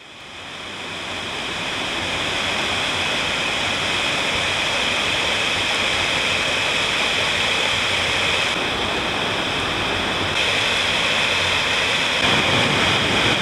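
Mountain stream rushing and splashing over rocks in a small cascade, a steady unbroken rush that fades in over the first couple of seconds.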